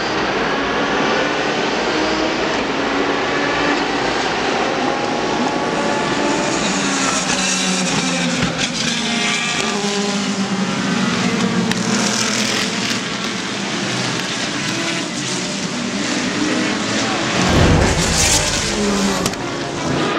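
Race car engines running and passing, their pitch rising and falling as they go by, with several cars overlapping. Near the end a heavy, deep rumble swells up and dies away.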